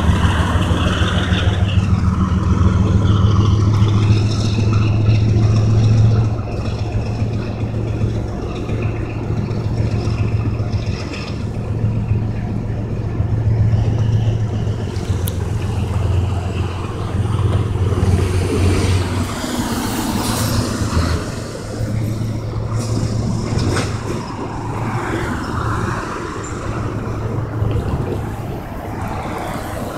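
Freight train of steel coil cars rolling past: a continuous low rumble of wheels on the rails, a little louder for the first six seconds.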